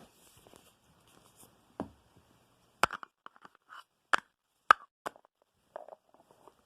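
Plastic parts of a food thermos and its folding spoon being handled and fitted together: a few sharp clicks about two, three, four and four and a half seconds in, with softer ticks and rustling between.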